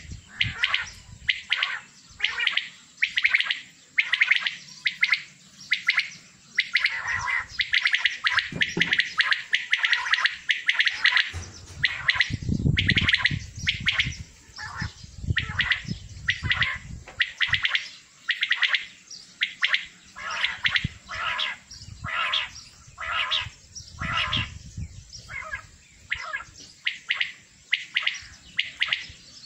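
Many caged male quails (batair) calling together. Their short, sharp calls overlap and follow one another without a break.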